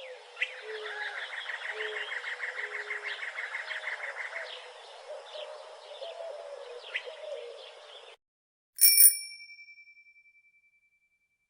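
Outdoor ambience of birds chirping, with a fast trill of about nine notes a second for the first few seconds, which cuts off suddenly about eight seconds in. About a second later a bicycle bell rings once and rings out.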